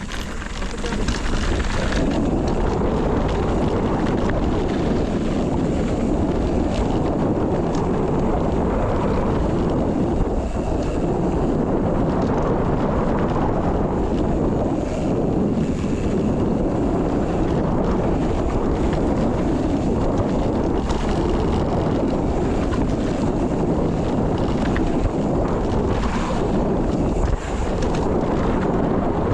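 Wind buffeting the microphone over a mountain bike descending a rough, rocky trail: a steady loud rumble of tyres on dirt and rock, with scattered knocks and rattles from the bike throughout.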